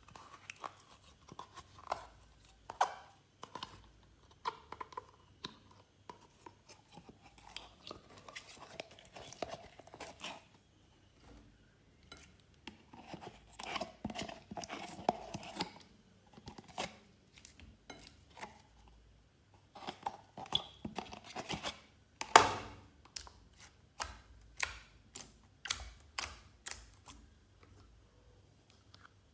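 Glossy slime being squished and stretched by hand, giving irregular sticky clicks and crackling pops. One louder pop comes about three-quarters of the way through.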